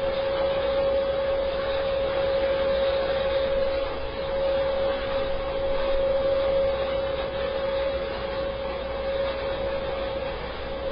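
EuroProp International TP400-D6 turboprop engine running steadily on a test run: a loud even rushing noise with a single steady whining tone over it.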